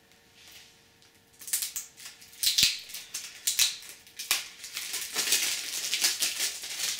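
Plastic shrink wrap crinkling and crackling as it is peeled off a CD jewel case, in quick irregular rustles that start about a second and a half in, with a few sharp clicks.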